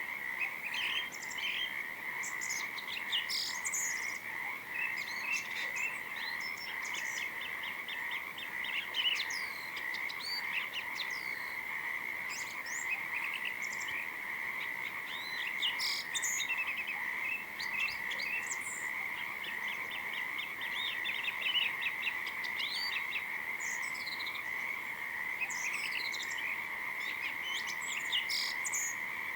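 A continuous chorus of frogs by a river, a steady unbroken drone, with birds chirping over it and twice breaking into short rapid trills.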